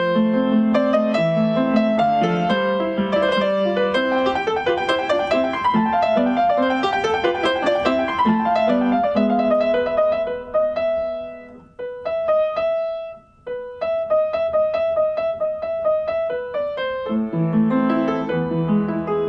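Background piano music: a flowing melody over low chords, thinning to a few sparse high notes about two-thirds of the way through before the fuller playing comes back near the end.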